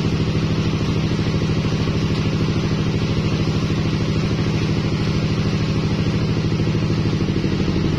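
Engine of a mobile rice threshing machine running steadily, with an even rapid pulse.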